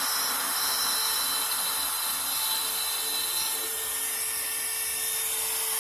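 Homemade table saw's circular saw blade running, a steady high-pitched whine and hiss, that cuts off abruptly near the end.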